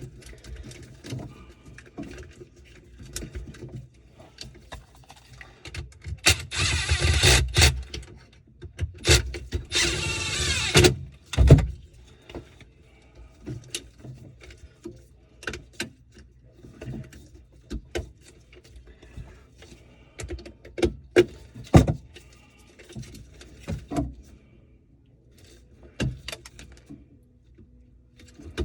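Scattered knocks, clicks and clatter of hand work with tools and drain parts, with two louder stretches of rough noise about six and nine seconds in and a heavy thump just after.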